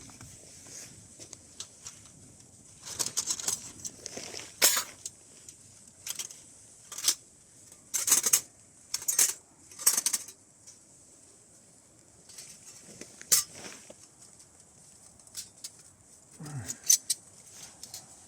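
Irregular bouts of dry scraping and crackling: dry plant material being worked by hand, scraped and broken into fine tinder for a fire.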